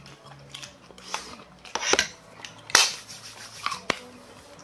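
Mealtime table sounds: a few sharp clicks of chopsticks and spoons against bowls and dishes, among short noisy sounds of eating.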